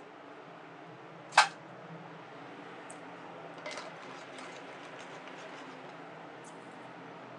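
Pot of fresh ravioli boiling on a gas burner, a steady low hiss, with sparse light crackles from butter and sage leaves frying in a pan beside it. A single sharp click about a second and a half in is the loudest sound, with a smaller clatter of clicks near the middle.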